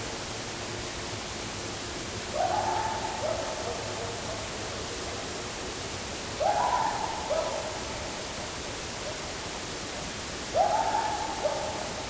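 Three calls about four seconds apart, over a steady hiss. Each is a quickly rising note held for about a second, followed by a lower held note.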